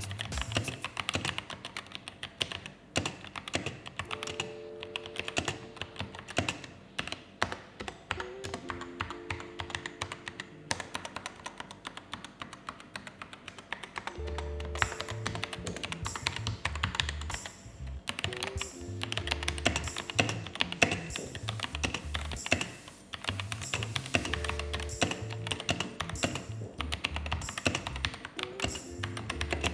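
Typing on a Vortex VX5 mechanical keyboard with Outemu red linear switches and EVA foam inside the case: a quick, continuous run of keystrokes, over background music with a steady beat.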